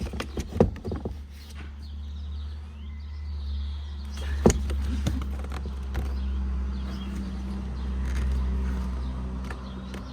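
Clicks and a sharp knock from hand work on a car's interior door panel. Under them runs a steady low hum, with faint bird chirps.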